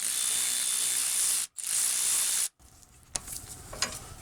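Cordless electric ratchet (Milwaukee M12 FUEL 3/8") spinning out a 13 mm starter mounting bolt in two bursts, the second shorter. A few light metal clicks follow near the end.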